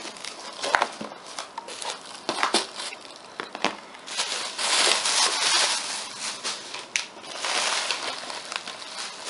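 Scissors cutting through a corrugated cardboard box flap in a few separate snips, then plastic bubble wrap crinkling and crackling from about four seconds in as it is handled and pulled out of the box.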